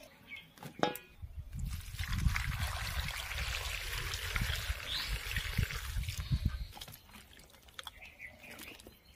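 Water poured from a steel pot into a steel bowl of cut raw jackfruit pieces, splashing steadily for about five seconds and stopping near the end. Faint sloshing follows as hands rub the pieces in the water.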